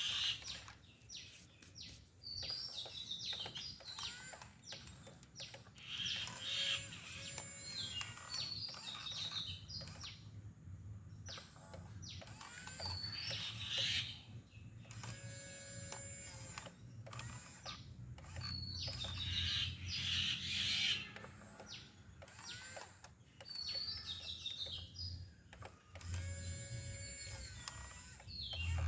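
Birds chirping again and again in short, quick calls, over a low steady hum with brief whines and clicks from small electric motors of RC construction machines.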